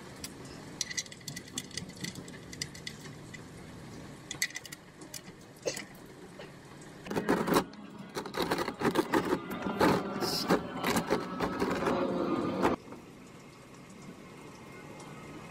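Clicking and scraping of hand work on a car's spin-on oil filter as it is worked loose. Scattered light clicks give way to a dense run of loud clicks and scrapes that stops suddenly.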